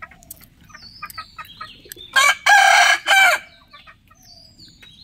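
A rooster crowing once, loud, about two seconds in, in three joined parts, with short clucking calls before it and high chirps around it.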